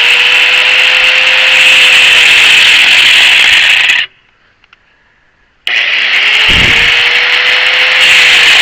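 Handheld angle grinder cutting through tack-welded steel: a loud, steady grinding hiss with a faint motor whine that rises as the motor spins up. It stops about four seconds in and starts again about a second and a half later, spinning up again.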